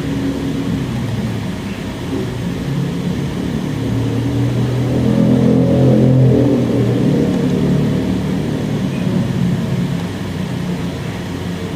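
A low engine hum that swells to its loudest about halfway through and then fades again, like a motor vehicle going past.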